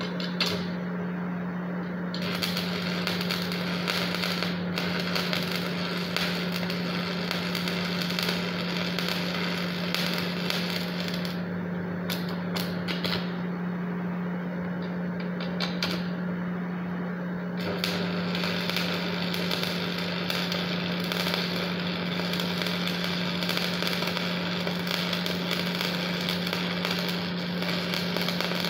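Shielded metal arc (stick) welding: the arc crackling and spitting steadily as a coated electrode burns along the joint between two steel plates. A steady low hum runs underneath, and the crackle thins for a few seconds about halfway through.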